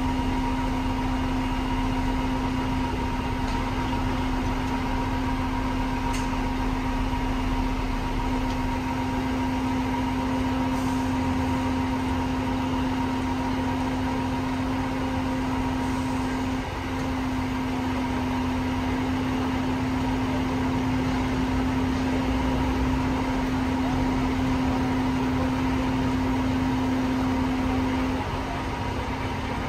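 Truck-mounted crane's engine and hydraulic pump running with a steady whine. The pitch dips briefly about two-thirds of the way in and again near the end as the crane works the load.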